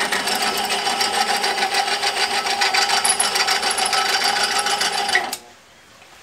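Homemade electric drill, built from an old twin-tub washing-machine motor driving the chuck through a gear reducer, running with a steady whine and a rapid, even ticking rattle. It is switched off about five seconds in.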